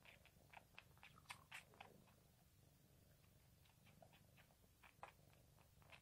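Tabby cat suckling on cloth while kneading: faint, irregular wet smacking clicks, bunched together, with a pause in the middle.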